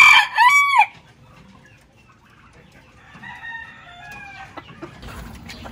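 A rooster crowing, its last long note ending within the first second. After a pause, soft clucking from the chickens, with a few faint taps.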